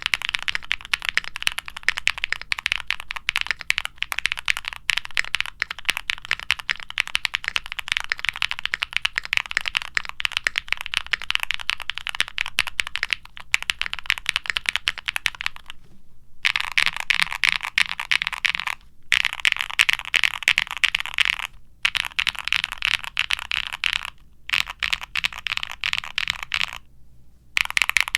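Fast continuous typing on a Qwertykeys Neo65 mechanical keyboard: Krytox-lubed Gateron Baby Kangaroo tactile switches with nylon top housings, in a gasket-mounted case with a POM plate and full foam, under double-shot PBT keycaps. The keys click rapidly with a marbly bottom-out. In the second half the typing comes in bursts, with several short, complete pauses.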